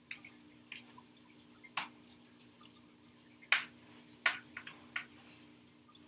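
Fork clicking and scraping against a bowl as pasta is stirred: about five short knocks, the loudest about midway, over a faint steady hum.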